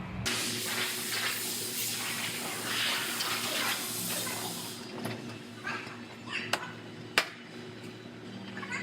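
Body-shop work noise: a rushing hiss for about five seconds, then quieter clatter broken by two sharp knocks.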